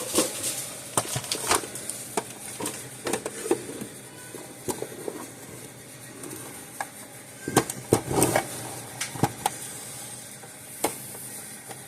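Hands working on an electric fence energizer at the bench: irregular clicks, taps and knocks of parts and tools being handled, with a cluster of louder knocks about eight seconds in.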